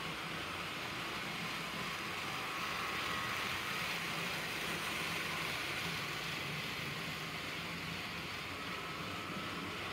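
HO scale model freight train running past on the track: a steady rolling noise from the cars' wheels and the locomotive's motor, growing a little louder about three to five seconds in as the train passes close.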